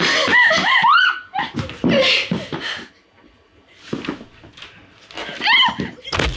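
A woman crying out and whimpering in fear, wavering cries that slide up and down in pitch with gasping, sobbing breaths between them. A sharp thump right at the end.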